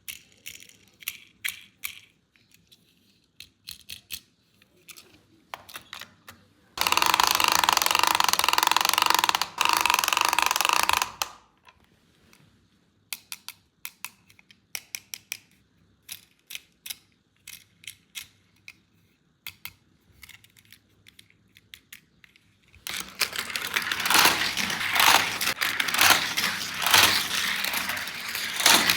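Hands handling a plastic toy playset and its packaging: many small sharp clicks and taps of plastic parts, a loud steady noise lasting about four seconds roughly a quarter of the way in, and dense crackling of packaging in the last few seconds.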